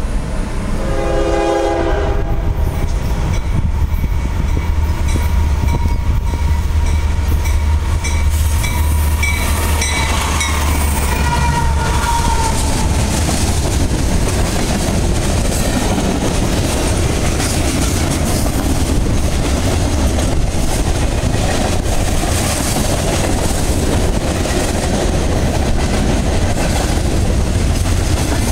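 A train horn sounds briefly near the start. Then a passing freight train's diesel locomotive rumbles, and its horn is held for several seconds, dropping in pitch as it goes by. After that, the tank cars and covered hoppers roll past with a steady clatter of wheels over the rail joints.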